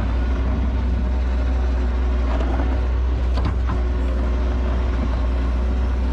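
New Holland L150 skid steer's diesel engine running steadily under work, pushing snow, with a couple of light knocks a little over two and three and a half seconds in.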